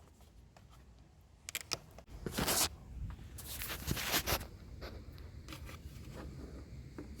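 A plastic lid being worked off for an oil fill: short rasping scrapes and rubs, the loudest about two and a half and four seconds in, with lighter handling noise between.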